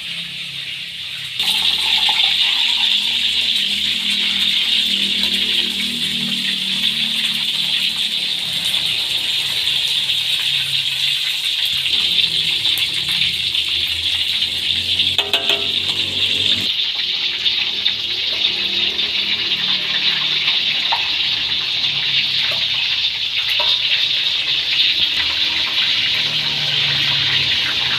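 Tofu deep-frying in hot oil in a wok: a loud, steady sizzle that starts abruptly about a second in. The tofu came from the freezer and was not squeezed, and its water makes the oil sizzle loudly.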